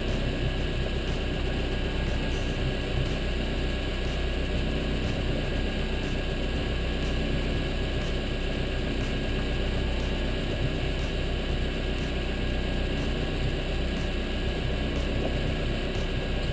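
Boat engine running steadily at low, even revs, a constant hum, as the boat trolls slowly.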